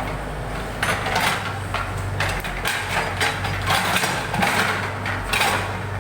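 Backhoe loader's engine running steadily under a series of knocks, clanks and scrapes from the machine working in the ditch.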